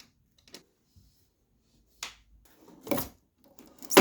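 A few scattered clicks and knocks of hard plastic and small tools being handled, with a sharper click about halfway and a louder knock and rattle near the end.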